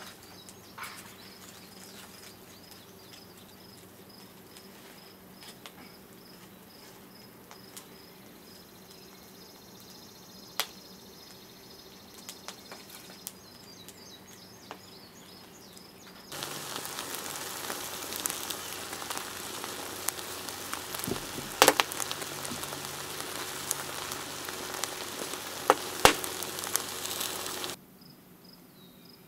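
Wood fire burning in the firebox of a wood-fired pottery kiln: a steady rush with sharp pops and crackles. It comes in loud for about eleven seconds in the second half, starting and stopping abruptly. Before it there are only a few faint crackles, with crickets chirping steadily.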